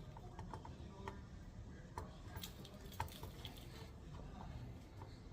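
Faint, irregular small clicks and light taps of tools working on a circuit board during desoldering, over a low steady hum.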